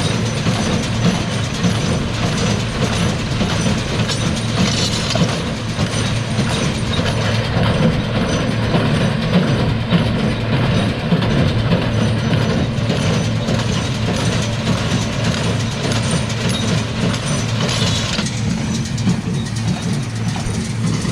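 New Holland square balers running behind tractors: a steady mechanical clatter over the low, even drone of the tractor engines.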